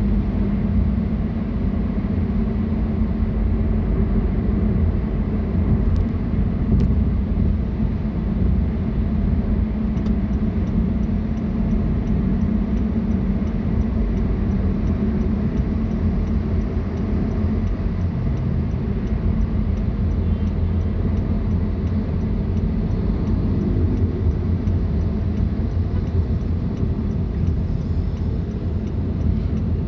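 A car being driven: steady low rumble of engine and road noise. From about ten seconds in, a faint regular ticking runs along with it.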